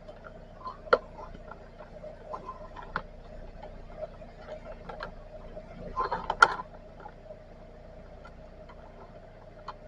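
Scattered small clicks and creaks of a drain inspection camera's push rod and reel being fed along a sewer pipe, with a quick run of clicks about six seconds in, over a faint steady hum.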